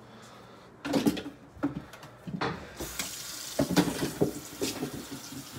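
Knocks and clatter of a plastic container and utensils in a kitchen sink, then the tap turned on about three seconds in, water running steadily into the sink with more knocks over it.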